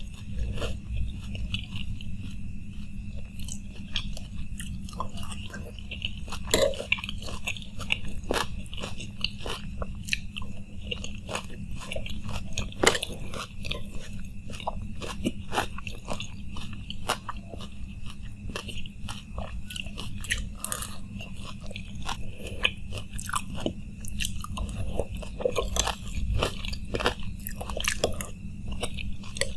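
Close-up mouth sounds of a person chewing and crunching spoonfuls of chotpoti, a spiced yellow pea curry with onions, with many irregular wet clicks and crackles. A steady low hum runs underneath.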